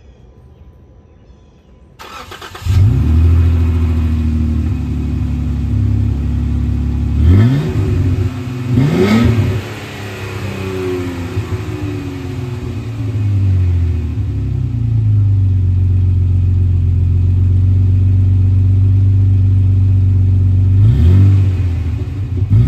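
2015 Jeep Wrangler JK's 3.6 Pentastar V6 running through a Thrush muffler. It cranks and starts about two seconds in, idles high, and is revved twice quickly about seven and nine seconds in. It then eases down to a lower steady idle and is revved again twice near the end.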